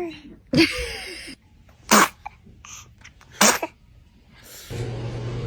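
A baby sneezing three times, about a second and a half apart, each a short sharp burst. Near the end a steady low hum with hiss comes in.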